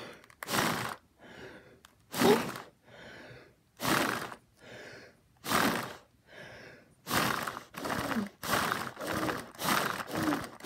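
A person breathing heavily close to the microphone: loud breaths about every second and a half with softer ones between, then quicker panting with a little voice in it over the last few seconds.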